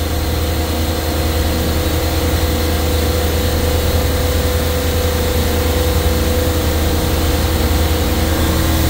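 Supermarket refrigeration compressor rack running: a loud, steady machine hum with a steady tone over it.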